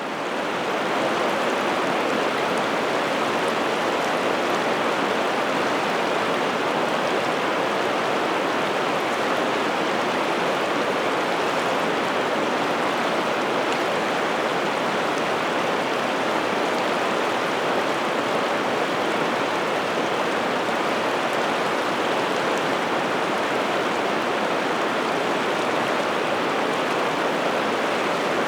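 Piteälven river water flowing steadily, an even, full rush without break, fading in at the start.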